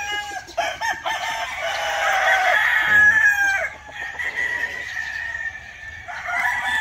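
Gamecock roosters crowing, several long calls overlapping; the crowing is loudest in the first half and fainter near the end.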